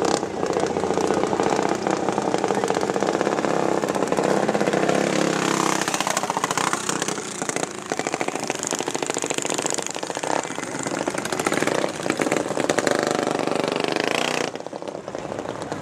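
Two mini bikes' small engines revving hard as they launch off the drag-strip start line. The sound is loudest at the launch, then changes and eases off as the bikes run away down the strip, and cuts off suddenly near the end.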